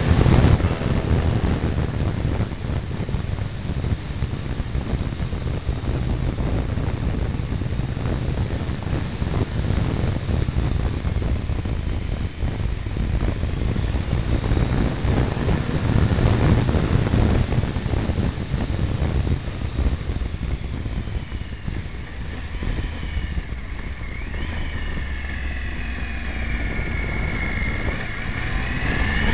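Triumph Tiger 955i's three-cylinder engine running on a downhill ride, largely buried under wind buffeting the microphone. In the last few seconds the engine pitch rises and falls as the revs change.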